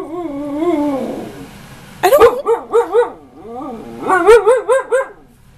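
Siberian husky 'talking': a long wavering moan, then two runs of quick rising-and-falling woo-woo notes about two seconds and four seconds in. It is the demanding, argumentative vocalizing a husky does when she wants something.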